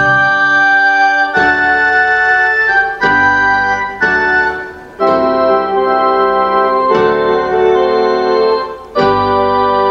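Casio electronic keyboard playing slow, sustained hymn chords with no singing, the chord changing every second or two.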